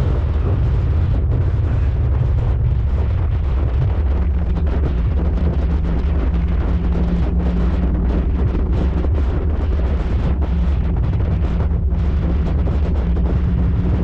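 Wind buffeting the microphone on a moving motorcycle, a loud steady rumble with the engine's low drone beneath it; the drone's pitch changes about four seconds in.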